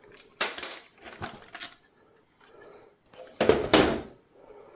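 Clatter of a desktop computer's motherboard and steel case being handled as the AMD processor is pulled out of its socket: a few short rattles and clicks, then a louder knock and rattle about three and a half seconds in.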